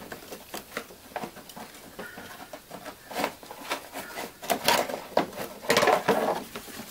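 Plastic splash shield scraping and clattering against the wheel-well liner and suspension as it is worked loose by hand, with scattered clicks and a louder run of scraping near the end.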